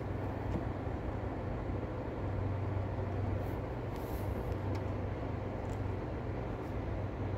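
Steady low rumble and hiss of distant city traffic, with a few faint ticks.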